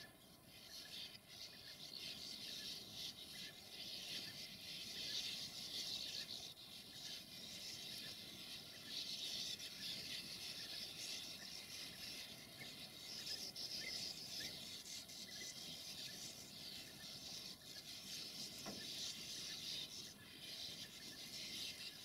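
Many sand martins at their burrow colony, twittering and chattering together as a faint, continuous high-pitched din that swells and fades.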